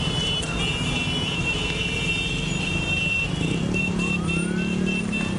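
Street din with high, steady alarm tones sounding throughout, such as car alarms. About three and a half seconds in, a siren slowly rises in pitch and begins to fall.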